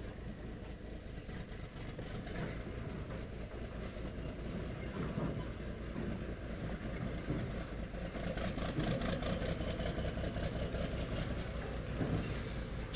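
Diesel truck engine running steadily, growing somewhat louder over the first several seconds.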